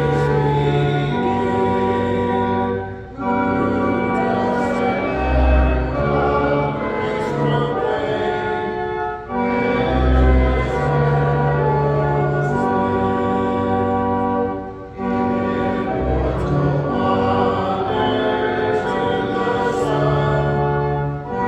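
Congregation singing a hymn with organ accompaniment: sustained chords with deep pedal notes underneath, the music dipping briefly between phrases about every six seconds.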